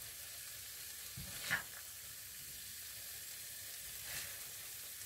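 A spoon scraping cooked beans and potato out of a frying pan into a serving dish, over a faint steady hiss. The clearest scrape comes about a second and a half in, with a weaker one around four seconds.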